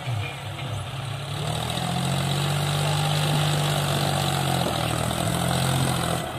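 John Deere tractor's diesel engine running steadily as the tractor drives down a dirt mound, growing louder about a second and a half in and easing off just before the end.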